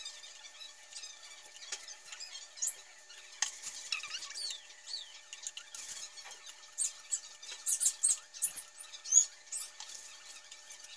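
A knife cutting frozen peaches, the blade squeaking and clicking in short sharp bursts against the icy fruit, with pieces dropping into a plastic blender jar.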